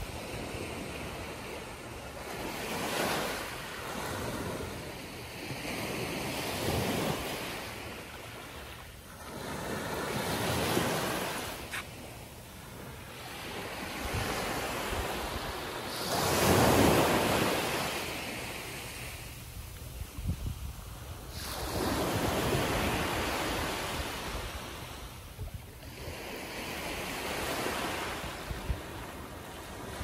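Small waves breaking and washing up a sandy beach, swelling and fading about every four seconds, the loudest about halfway through.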